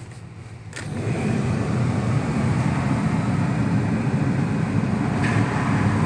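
Ford Crown Victoria 4.6-litre V8 idling; about a second in, as the heater is switched on full, a much louder, steady rattling noise comes in and holds. The owner suspects a broken plastic timing chain guide or a worn tensioner letting the chain rattle.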